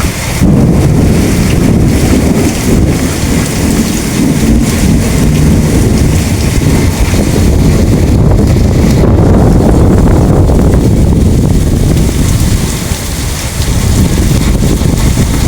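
Thunderstorm: a long rolling rumble of thunder over heavy rain. It sets in suddenly about half a second in and eases off near the end.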